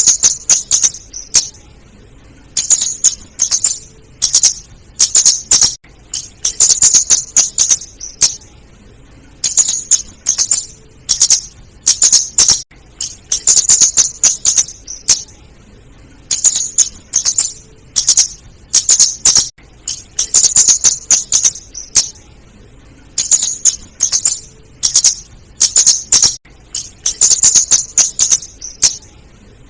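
Female flowerpecker (kemade, or cabe jawa) call used as a trapping lure: bursts of rapid, high-pitched ticking chatter about a second long, repeated every second or two.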